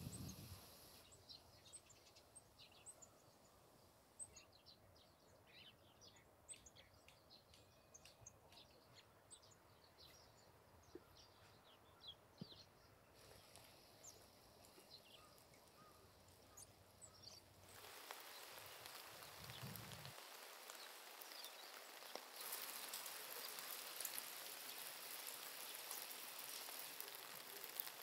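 Faint, scattered chirps of small birds. About two-thirds of the way in, a soft, steady hiss of falling rain sets in and grows heavier a few seconds later.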